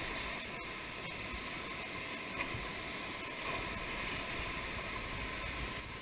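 Whitewater rapids rushing around an inflatable raft: a steady, even wash of water noise.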